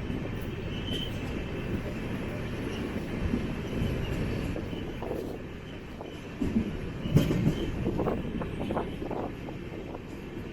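Passenger train running on the rails, heard from on board: a steady low rumble of the moving coach with scattered wheel knocks. A louder cluster of knocks comes about seven seconds in.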